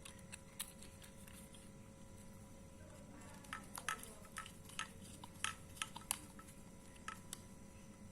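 Light scattered clicks and taps from hands handling electrical wires fitted with crimped cable lugs, coming more often about halfway through.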